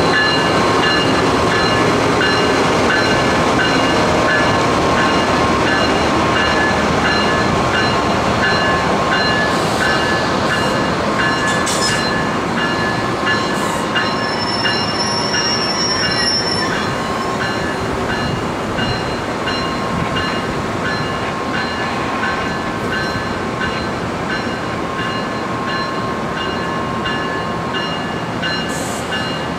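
MARC commuter train of Bombardier multilevel passenger cars rolling past on steel rails: a dense rumble with steady high-pitched wheel squeal and a faint regular clicking, slowly fading.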